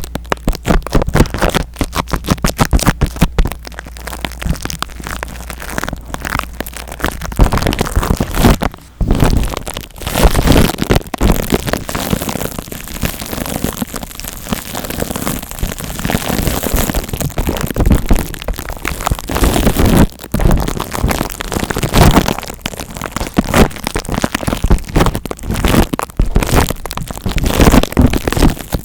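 Close-miked ASMR scratching and rubbing noises, typical of a scalp-massage sound played straight into the microphone. It starts as a quick run of sharp crackling clicks, then after about seven seconds turns into a denser, continuous crackle.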